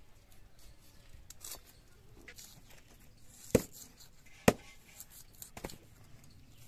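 A knife cutting through a red onion: a few faint crisp cuts and two sharp clicks about a second apart past the middle.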